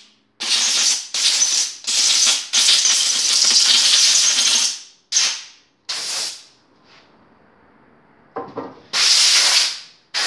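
Compressed-air blow gun hissing in a string of short blasts, one of them lasting about two seconds, blowing dirt out of the carburetor mounting of a lawnmower engine.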